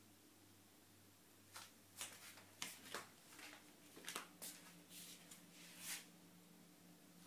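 A cat's claws and fur scratching and rustling against a cat tree: a quick run of about a dozen short scratchy scuffs, starting about one and a half seconds in and stopping near six seconds.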